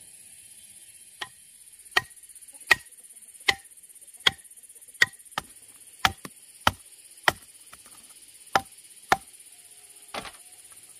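Repeated chopping with a blade, about a dozen sharp strikes roughly two-thirds of a second apart, with a short pause between them. A steady high-pitched hiss runs underneath.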